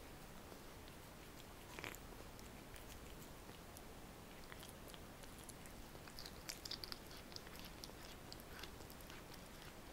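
A cat chewing raw lamb liver: faint, wet chewing with small clicks of teeth on the meat. There is one louder click a little under two seconds in and a quick run of sharper ones around six to seven seconds in.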